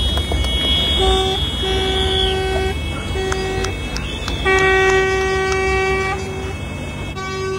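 Horns of a dump truck and wheel loaders sounding together in a series of blasts, several short and one longer one about halfway through, with more than one pitch at once.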